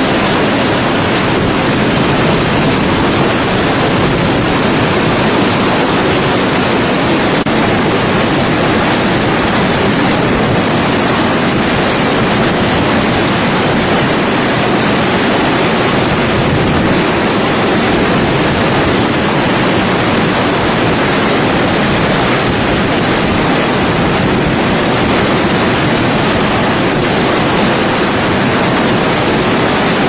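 Loud, steady rush of a waterfall: heavy water pouring and crashing over rock without a break.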